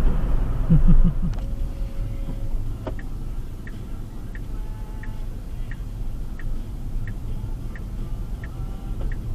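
Steady road and engine rumble inside a moving car, with a short louder patch about a second in. From about three seconds in, a regular ticking comes in, about three ticks every two seconds.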